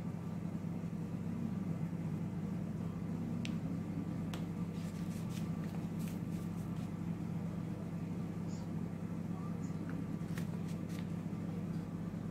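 A steady low hum like a motor or fan running, with a few faint clicks scattered through it.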